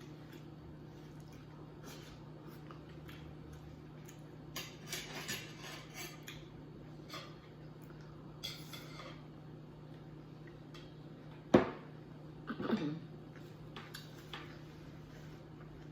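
Spoon clinking and scraping on a plate during eating, in scattered short clicks and scrapes with a sharper clink about three-quarters of the way in, over a steady low hum.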